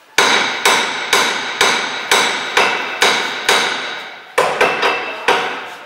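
Steady hammering: about a dozen hard hammer blows at roughly two a second, each one ringing briefly before the next.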